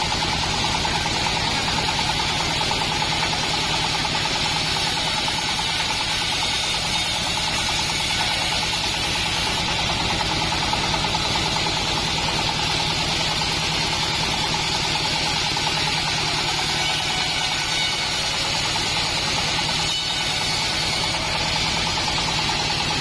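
Engine-driven assembled bandsaw mill running steadily: a constant engine drone with rapid even pulses and a steady higher tone over it.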